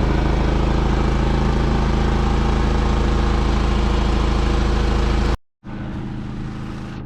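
Four-wheeler (ATV) engine running at a steady, unchanging pitch. It cuts out abruptly about five seconds in, then comes back quieter.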